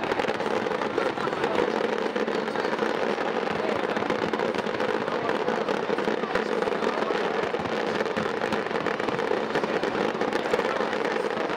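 Aerial fireworks bursting in a dense, continuous barrage: many small pops and crackles overlapping, with no single big bang standing out.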